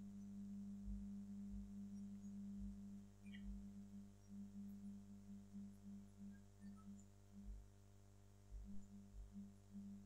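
Near silence: a faint steady low electrical hum in the recording's room tone.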